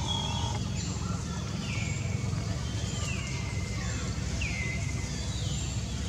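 An animal's high-pitched call, falling in pitch, repeated about every second and a half over a steady low rumble.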